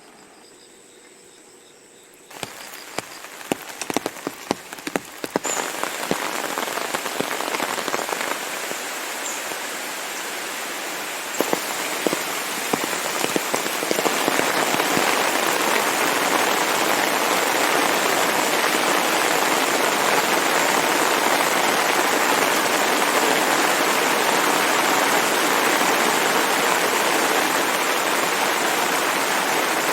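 Rain: after a couple of quiet seconds, scattered heavy drops start hitting, then a steady downpour builds, growing louder in steps until about fourteen seconds in and then holding steady.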